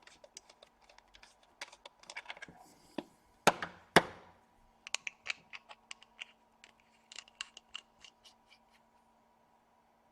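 Hands handling a stabilized-wood squonk box mod while a vape atomizer is fitted to it: a run of small clicks and ticks, with two loud sharp knocks a little after three and four seconds in. A faint steady hum lies underneath.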